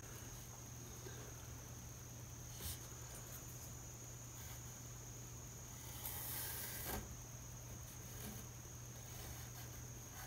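Faint pencil scratching over wood as a guitar headstock outline is traced around a template, loudest for about a second near the middle, with a light tap a few seconds in. A steady high-pitched whine and low hum run underneath.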